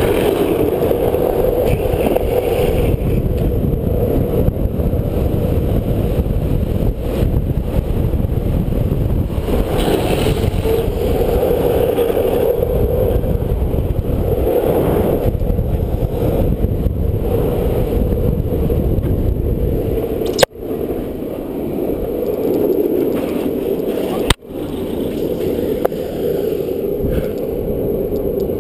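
Downhill longboard's urethane wheels rolling fast on asphalt, a steady rushing roar heard from a board-mounted camera. Two sharp clicks, about four seconds apart, come in the last third, and the roar is a little quieter after the first.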